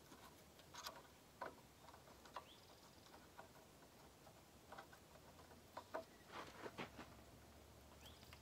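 Near silence with faint, scattered clicks and taps as a GFB DV+ diverter valve is wiggled by hand into its port on the turbocharger and hand-tightened.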